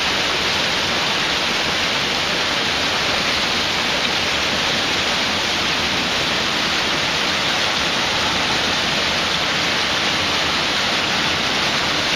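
Mountain stream tumbling over a small cascade of rocks: a steady, loud rush of white water with no break.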